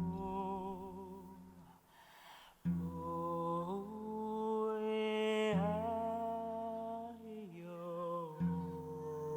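Voices singing and humming a slow lullaby a cappella, in long held notes with vibrato over a low sustained hum. The phrases come in about every three seconds, with a short breathy noise between the first two.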